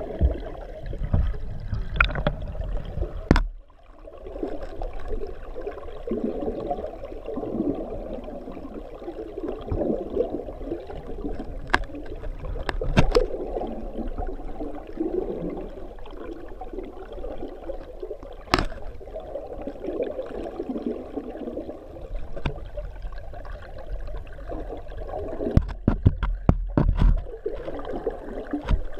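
Flowing water in a fish ladder pool, heard underwater through a GoPro's housing: a dull, steady rush with a low rumble. Scattered sharp clicks break it, with several in quick succession near the end.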